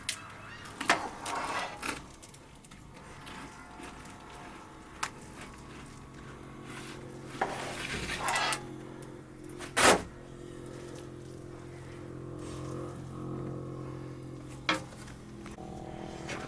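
Cookware and utensils handled during cooking: a few sharp knocks and clatters, the loudest about ten seconds in, and a scraping rustle around eight seconds, over a low steady hum.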